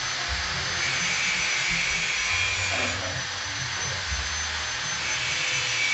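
An electric quick-cooling (blast chiller) machine for VCO running steadily: a continuous hiss with a thin high whine and a wavering low hum.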